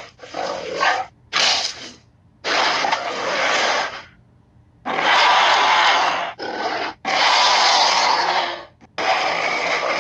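Daspletosaurus sound effects: a string of raspy growls and roars, about seven separate calls of varying length with short pauses between them, the longest lasting about one and a half seconds.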